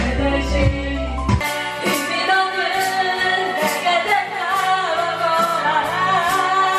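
Karaoke: voices singing loudly into microphones over a pop backing track with a steady beat. The heavy bass drops out about a second and a half in, leaving the vocals over lighter accompaniment.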